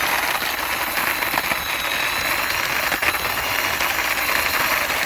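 Toy bus pushed along the floor by hand: a steady rattling whir from its small wheels rolling.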